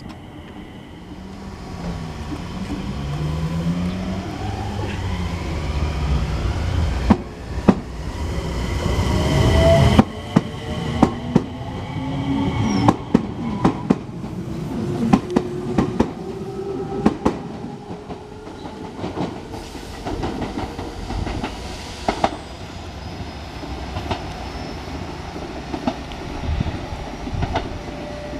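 Enshu Railway 2000-series electric train (set 2007) running. Its motor whine climbs in pitch over the first several seconds under a heavy rumble. From about ten seconds in, the wheels clack over rail joints in a long run of sharp clicks, with a whine still gliding beneath.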